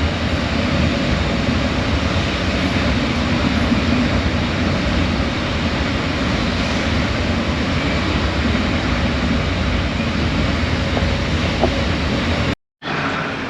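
Steady rumble and hiss of a passenger train running along the line, heard from inside the carriage. It cuts off abruptly near the end.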